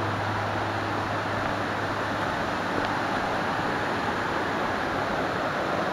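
Steady rushing of a rocky mountain creek.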